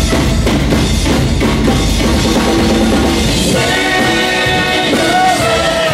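Live show band playing, with the drum kit to the fore; held notes come in over the drums about halfway through.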